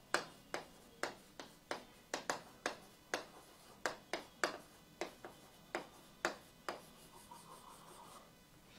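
Marker pen writing on a whiteboard: short strokes, about two a second, as the letters are written, then a longer continuous rub near the end as a wavy underline is drawn.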